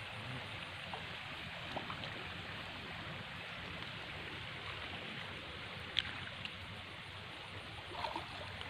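Steady rush of flowing water around a person wading waist-deep, with a single sharp click about six seconds in.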